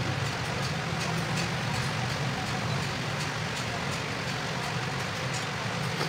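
A steady low rumbling background noise, with a few faint light clicks from small plastic switch parts being handled.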